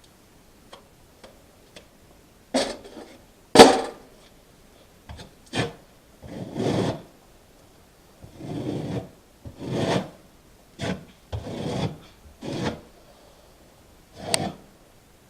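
Notched trowel scraping acrylic mastic adhesive across a surface in a series of separate strokes of half a second to a second each, with a sharp knock about three and a half seconds in.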